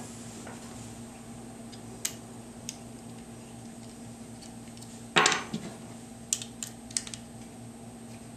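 Light metal clicks and clinks of small rifle-stock parts and tools being handled while a screw is removed from the mag well assembly, with one louder knock about five seconds in followed by a quick run of lighter clicks, over a steady low hum.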